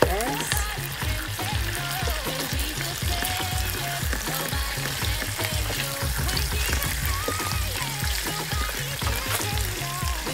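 Chicken leg quarters sizzling as they brown in olive oil in a nonstick pan, turned over with a wooden spoon. The sizzle is steady throughout.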